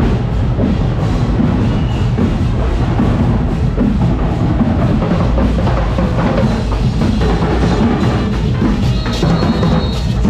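Carnival parade band playing loud drum-heavy music, with bass drums and other percussion going without a break. A high held tone joins near the end.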